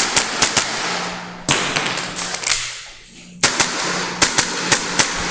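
Airsoft pistol firing a string of sharp shots, many in quick pairs, with short pauses between the groups as the shooter works through a timed course of fire.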